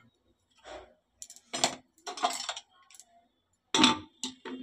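Metal clinks and scrapes on an aluminium pressure cooker: a steel spoon adding salt to the chickpeas, then the lid being fitted and closed, with a sharp knock a little before the end.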